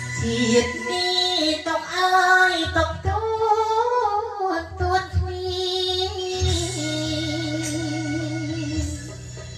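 A solo singer singing a melody into a handheld microphone over instrumental accompaniment. The phrase ends on a long held note with vibrato.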